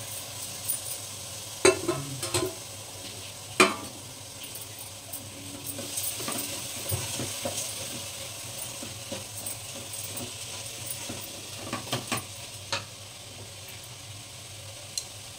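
Wooden spatula stirring soaked rice into hot spiced oil in a pressure-cooker pot, over a steady sizzle. A few sharp knocks of the spatula and a steel plate against the pot ring out, the loudest about three and a half seconds in and a couple more near twelve seconds.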